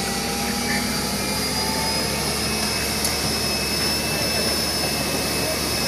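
A fire engine's pump running while a hose jet sprays water onto a burning car, heard as a steady, even rushing noise.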